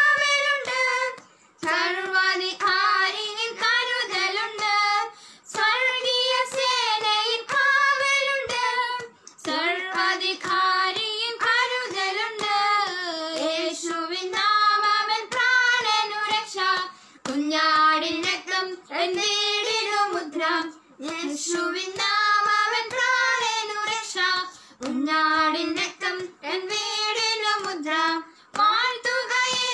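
Two girls singing a Malayalam Christian worship song together, unaccompanied. The melody comes in phrases of a few seconds with short breath pauses between them.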